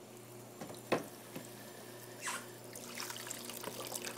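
Water trickling and splashing as a container of used cleaning water is emptied, with a sharp knock about a second in and a low steady hum underneath.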